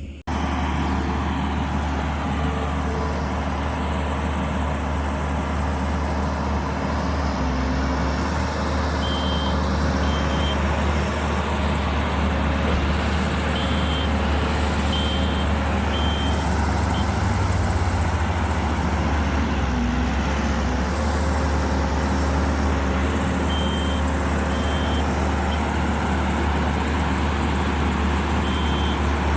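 Rented Kubota 75 skid steer's diesel engine running under load while working, a steady loud drone with a strong low hum. Its reversing alarm beeps in short spells several times as the machine backs up.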